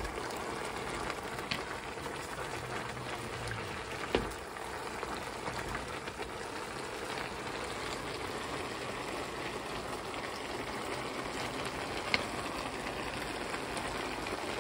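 Cabbage, carrots and meat sizzling and bubbling in broth in a skillet, stirred with a wooden spatula, with two sharp knocks about four and twelve seconds in.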